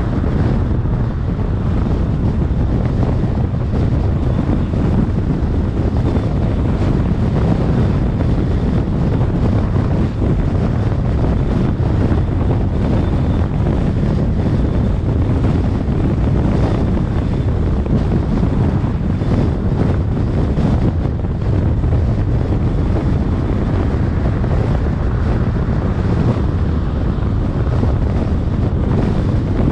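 Wind buffeting the microphone of a car-mounted camera while driving, mixed with road and tyre noise: a loud, steady noise strongest in the low end.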